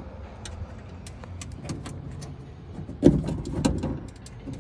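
Light clicks and taps of screws and metal parts being handled, with a louder clatter about three seconds in.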